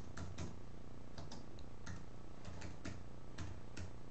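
Keys tapped on a computer keyboard in an irregular run of light clicks, over a low steady hum.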